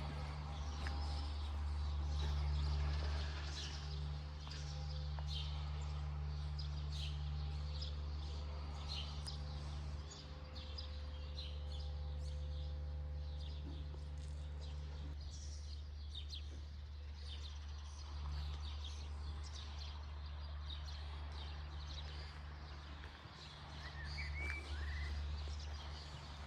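Outdoor ambience: a steady low rumble with many scattered light clicks, and a few short bird chirps near the end.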